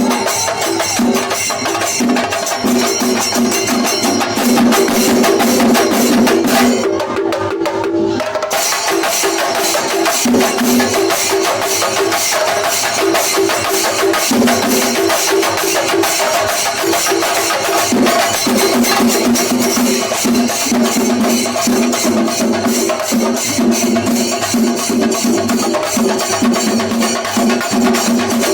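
Singarimelam ensemble playing a fast, dense rhythm on chenda drums with ilathalam hand cymbals. The cymbals drop out for about a second and a half some seven seconds in, then return.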